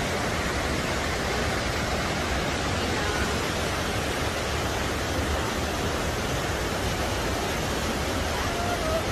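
Steady rushing of a waterfall's white-water cascade, an even, unbroken wash of falling water.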